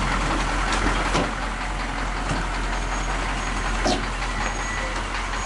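Large army vehicle's engine running steadily close by, with a couple of short knocks, one about a second in and one near four seconds in.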